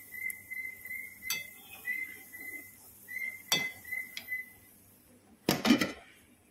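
A metal slotted spoon clinks sharply twice against the steel frying pan. A run of short, high whistled notes repeats behind it, two or three a second, and stops partway through. A loud knock and rustle comes near the end.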